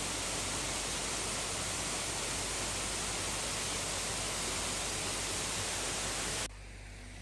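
Waterfall pouring over a rock face into a pool, a steady, dense rush of water. About six and a half seconds in it cuts off abruptly to a much fainter hiss.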